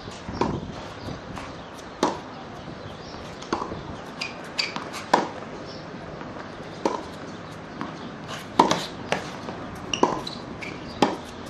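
Tennis rally on a hard court: a tennis ball struck by racquets and bouncing, a sharp knock every one to two seconds, with a quick double knock about two thirds of the way through.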